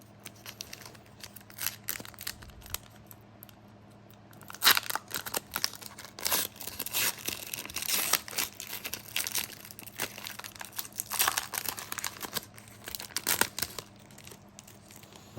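Wrapper of a Panini NBA trading card pack crinkling and tearing as it is ripped open by hand, in irregular bursts of rustling. The rustling is loudest from about four and a half seconds in and again around eleven to thirteen seconds.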